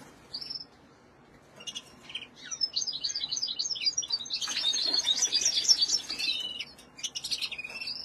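Caged finches chirping and singing: a few scattered high chirps at first, then from about two seconds in a busy stretch of rapid high twitters and trills, loudest just past the middle and thinning near the end.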